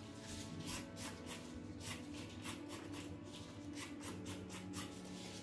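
Kitchen knife peeling a raw carrot, the blade scraping along it in quick repeated strokes, about three or four a second.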